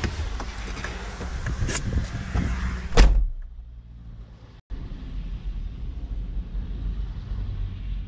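Clicks and rustling as the driver climbs out of a VW bus, then its door slams shut about three seconds in. A steady low rumble continues inside the cabin afterwards.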